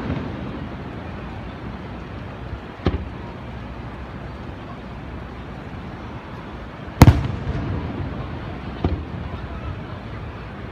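Aerial firework shells bursting at a distance: a fainter bang about three seconds in, a loud bang about seven seconds in with a rumble trailing off, and a smaller bang about two seconds after that, over a steady background hiss.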